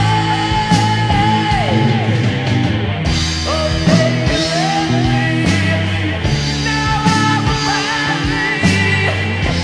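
New Wave of British Heavy Metal song, played from a vinyl record: distorted guitars, bass and drums under long held high notes that bend up and down in pitch.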